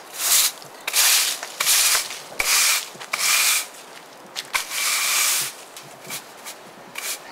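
Stiff-bristled broom sweeping paving slabs: about six rough swishing strokes roughly a second apart, the longest about halfway through, then a few lighter short scrapes near the end.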